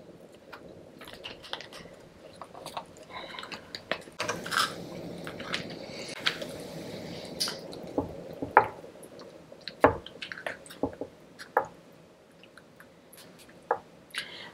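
Close-up eating of a sauced seafood boil: wet chewing and squishing, with scattered sharp clicks and taps.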